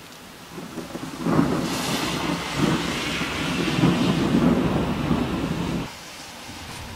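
Close thunder: a crackling rumble builds about a second in, runs for some five seconds and cuts off suddenly near the end, over a steady hiss of rain.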